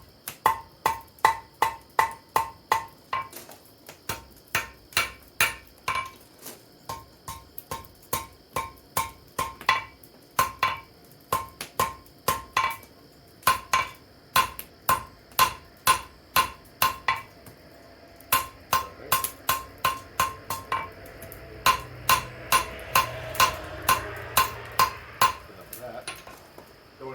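Hand hammer striking hot steel on an anvil, about two ringing blows a second in runs with short pauses, as the smith forges a leaf shape on a tool's loop handle.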